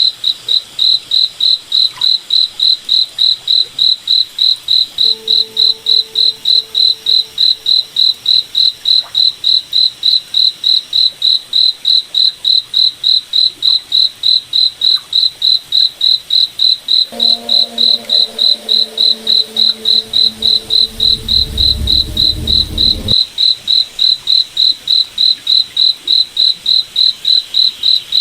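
A cricket chirping steadily in an even, fast rhythm, about three high chirps a second without a break.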